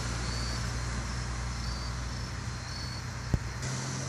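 Outdoor ambience: a steady low mechanical hum, with short, faint, high insect chirps every second or so. One sharp click comes a little past three seconds in.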